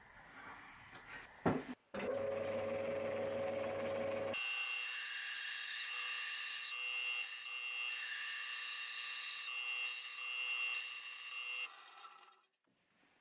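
Benchtop bandsaw running and cutting small pieces of wood: a steady machine whine that starts abruptly about two seconds in. It turns brighter and higher-pitched a couple of seconds later, then dies away near the end.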